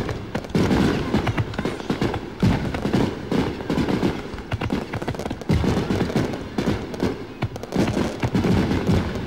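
Aerial fireworks display: shells bursting one after another with low booms every second or so over a dense, continuous crackle.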